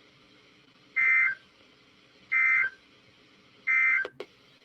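Three short bursts of EAS SAME digital data tones, the end-of-message (NNNN) code sent after a NOAA Weather Radio alert, evenly spaced a little over a second apart, followed by two sharp clicks near the end.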